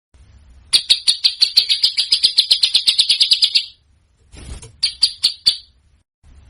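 Songbird song of the rapid-fire 'tembakan' kind: a fast run of sharp, high notes, about ten a second for some three seconds, then a short harsh burst and a few more notes.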